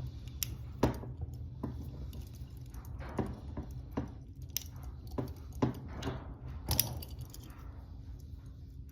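Lock pick working in a double-locked handcuff's keyhole: irregular small metallic clicks, scrapes and taps as the pick probes and the steel cuffs shift, with a few louder clicks about a second in and again near the middle and later.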